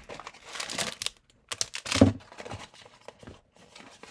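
Blind-box packaging being handled and opened: rustling, crinkling and tearing with quick small clicks, and one heavier thump about two seconds in.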